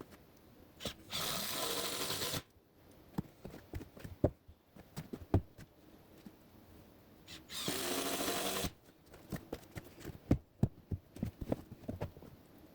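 Power drill driving screws into floor boards: two runs of about a second each, with clicks and knocks of handling in between.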